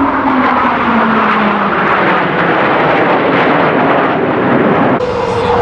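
Loud jet aircraft flying past, its roar with a tone falling steadily in pitch as it goes by. About five seconds in the sound changes abruptly to another pass, again falling in pitch.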